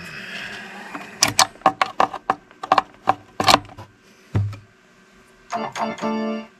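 Scratchy crackling and popping ("gari-gari") from a power amplifier's speaker output as its dirty output relay contacts are pressed while powered: irregular clicks for a few seconds, then a thump. Near the end a steady organ-like music tone cuts in as the contact makes, a sign that the channel's audio is getting through the relay.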